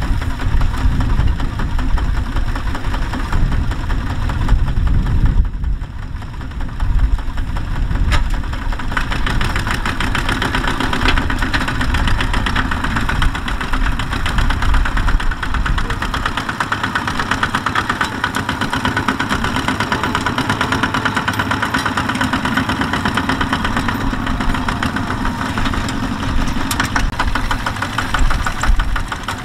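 Single-cylinder diesel engines of two-wheel walking tractors chugging with a rapid, even knocking beat as they pull loaded trailers. The sound dips briefly about five seconds in, then runs on steadily.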